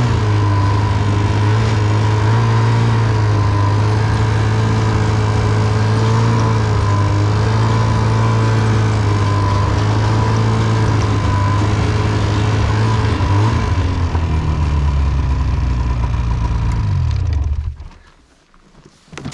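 A vehicle engine running steadily at low speed. It slows down about fourteen seconds in and cuts off shortly before the end.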